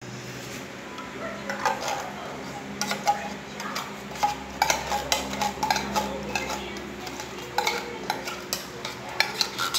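Irregular metallic clinks, knocks and scrapes of a tin can against a glass blender jug as it is tipped and emptied into the jug, over a steady low hum.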